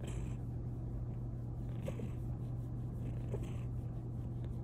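Bengal cat purring steadily at close range.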